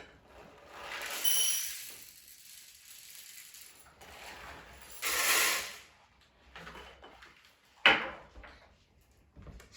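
Seeds being poured into the plastic trays of a sprouting kit: two rattling, hissing pours, then a sharp click of plastic near the end.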